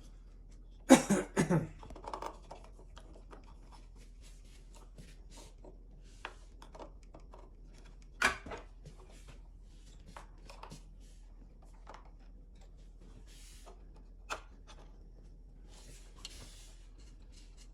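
Intermittent clicks, taps and scrapes from handling a chainsaw's bar and chain while fitting and tensioning the chain. The loudest burst comes about a second in, and a sharp click comes near the middle.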